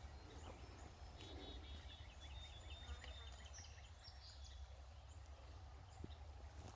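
Faint songbird song: a quick run of repeated high notes about a second in, then a shorter high phrase a little past the middle, over a low steady rumble.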